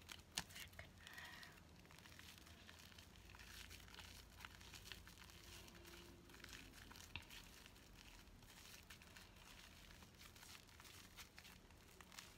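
Homemade fluffy slime being squeezed and worked by hand, giving faint, scattered crackles and small pops, with one sharper click about half a second in.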